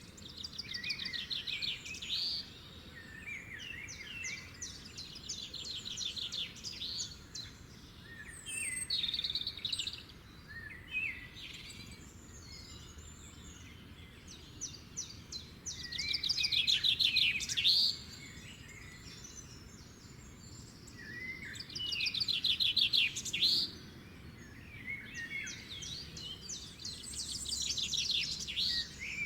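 Songbirds singing: fast, high trilled phrases and chirps come again every few seconds, loudest near the middle and toward the end, over a faint steady background hiss.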